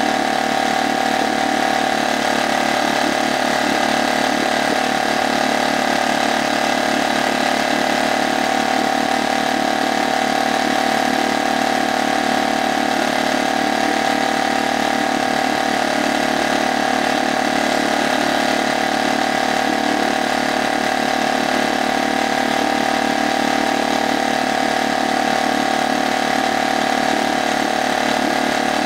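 HDX F 2.6 BMS four-stroke outboard motor running steadily in a water test barrel, with no change in speed. The motor is new, on its second run.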